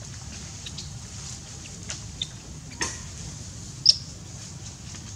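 A few short, high squeaks and clicks from a small animal, the loudest a sharp squeak about four seconds in, over a steady low rumble and hiss.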